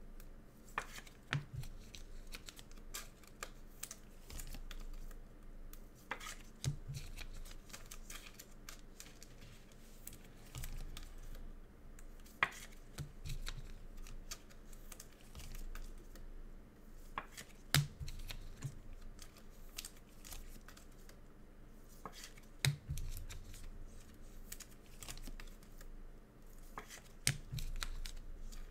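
Trading card packaging being opened and handled, a Mosaic football choice box and its packs: wrappers tearing and crinkling, with cardboard and cards clicking and sliding. Soft low thumps come every few seconds.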